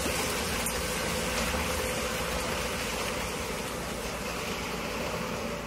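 Wet concrete pouring and sliding in a steady, gritty rush, with a low rumble and a faint steady hum underneath.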